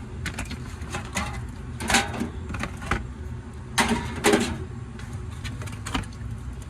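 Soda cans being handled and loaded into a drink vending machine: scattered clinks and knocks, the louder ones about two seconds in and around four seconds, over a steady low hum.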